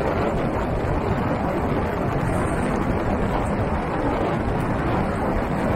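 Steady rush of wind on the microphone of a vehicle-mounted camera, over the low rumble of a vehicle driving along a wet dirt road.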